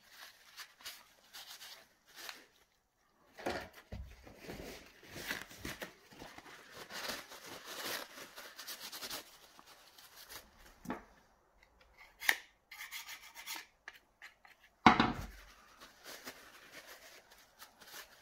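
Paper towel rubbing and wiping chain oil and packed sawdust off an electric chainsaw's side cover, with scattered scrapes and small clicks. A louder knock near the end.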